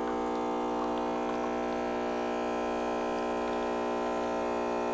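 Nespresso Professional Gemini espresso machine's high-pressure pump running as it brews two espresso shots at once: a steady, even hum.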